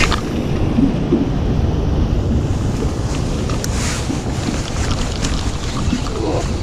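Wind buffeting the microphone, with water lapping against the boat and a couple of brief knocks or splashes.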